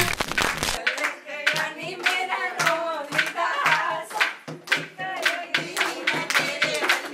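A group of women singing a folk song together to steady rhythmic hand clapping; a music track cuts off about a second in.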